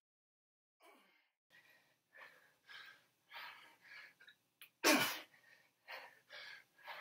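A man breathing hard with effort during push-ups: short, sharp puffs of breath about every half second, with one much louder exhale about five seconds in.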